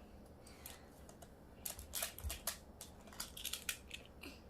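Plastic magnetic building tiles clicking and clacking as they are handled and snapped together, a quick run of sharp clicks after a quiet first second and a half.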